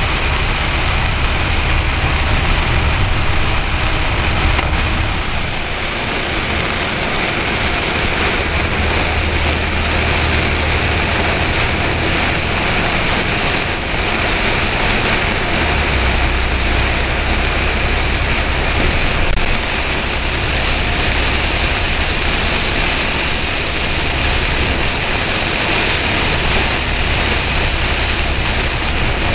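Torrential rain beating on a moving vehicle, with the steady low rumble of its engine and tyres on the flooded road underneath.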